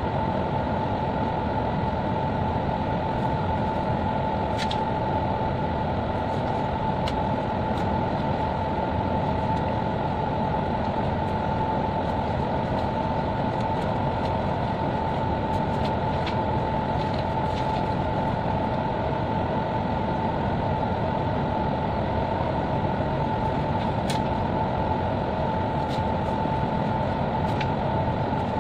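Steady drone of a ship's machinery and ventilation heard from inside the ship, with a constant whine running through it. Now and then there are faint clicks from envelopes and banknotes being handled.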